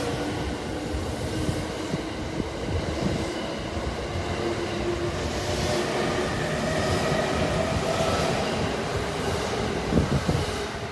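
JR East E217 series electric multiple unit pulling away and accelerating: a motor whine that climbs in pitch over the steady rumble and clatter of steel wheels on the rails. A single louder clack comes near the end.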